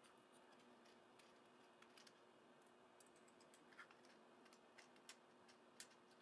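Faint, scattered small clicks and ticks of a screwdriver working screws out of a 3D printer's metal display housing, over near-silent room tone.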